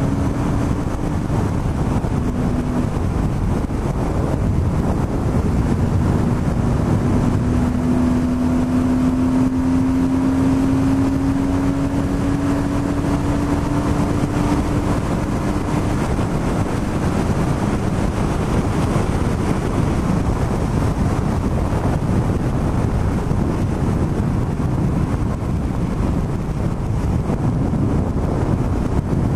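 BMW R1100RS's boxer twin engine running at road speed, with wind and road noise rushing over the microphone. The engine note climbs slowly through the first half as the bike gathers speed, then blends into the steady rush.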